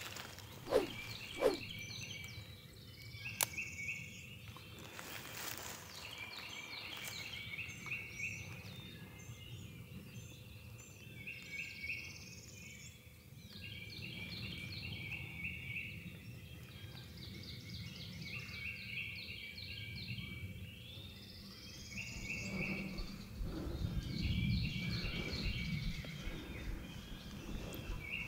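Songbirds singing in spring woods, phrases of quick high chirps repeating every few seconds, with two sharp knocks about a second in. Near the end there is close rustling of clothing and gear as the hunter shifts the shotgun.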